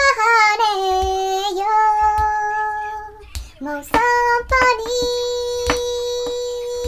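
A young girl singing a Nepali song unaccompanied, holding long drawn-out notes: one phrase ends about three seconds in, and a second long held note begins about a second later.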